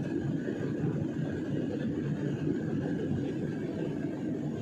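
Steady low drone of engine and airflow noise inside the passenger cabin of a jet airliner in flight.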